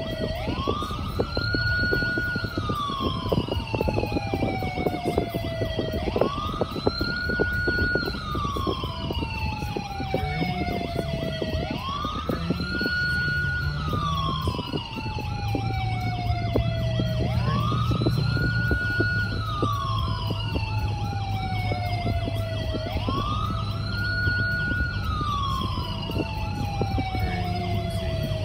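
Wail siren cycling slowly, each cycle rising quickly, holding briefly and then falling slowly, about every five and a half seconds, five times over. Heard from inside a moving car over steady low road rumble.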